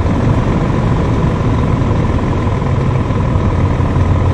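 Scania 450 S truck's 13-litre inline-six diesel idling steadily with a constant low rumble.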